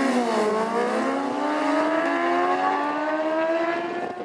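Two sport motorcycles running at full throttle as they accelerate away down a drag strip. The engine pitch falls about half a second in, then climbs steadily, and the sound grows fainter near the end as the bikes draw away.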